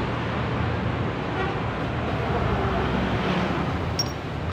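Steady road traffic noise with a low rumble, and a short metallic clink of metal parts near the end.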